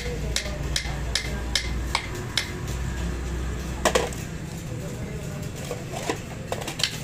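A hammer tapping a steel sleeve down onto a truck wheel hub in light, even metallic taps, about two and a half a second, which stop after a couple of seconds. A single louder metal clank comes near the middle, then a few lighter knocks, over a low steady hum.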